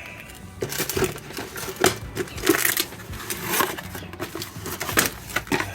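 Irregular metallic clinks and knocks with some rustling, as of tools or parts being handled.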